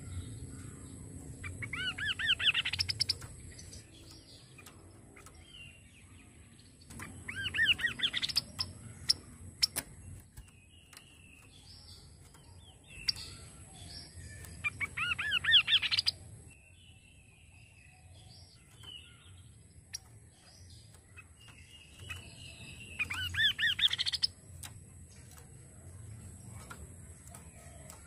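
Kaso-kaso bird singing: four loud phrases, each about two seconds of quickly repeated sweeping notes, with softer scattered chirps between them.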